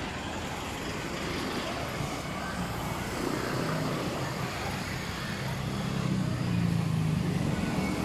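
Street traffic ambience: a motor vehicle's engine grows louder over the last few seconds as it comes near, over a steady wash of street noise.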